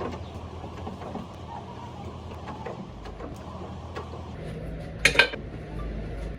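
A workshop machine running with a steady low hum and light ticking. Its hum deepens about four and a half seconds in, and a brief loud burst of noise comes about five seconds in.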